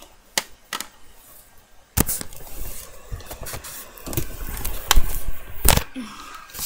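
Handling noise of a webcam being picked up and moved among plastic toys on carpet: irregular knocks, bumps and scrapes, with a sharp knock about two seconds in and the heaviest bumps between four and six seconds.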